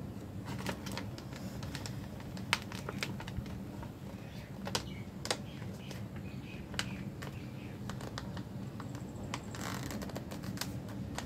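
A sheet of paper being folded and creased by hand: irregular crisp clicks and crackles as the folds are pressed, with a longer rustle near the end, over a steady low hum.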